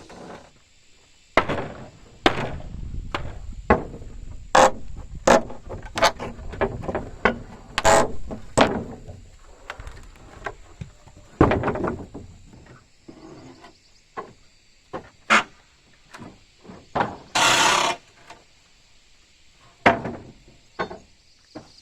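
Irregular blows and knocks on wooden timber, about twenty strikes at uneven spacing, busiest in the first half, with a short scraping rasp lasting about a second near the end.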